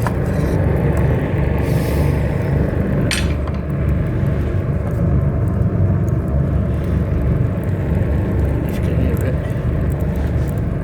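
Gravity-fed pellet rocket stove burning with a steady low rumble, with a few light knocks, the clearest about three seconds in.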